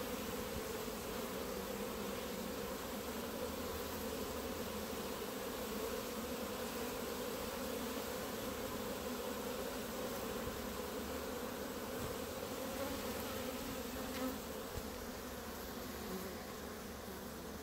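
Honeybees buzzing at close range around a hive entrance: a steady, unbroken hum of many bees, easing slightly near the end.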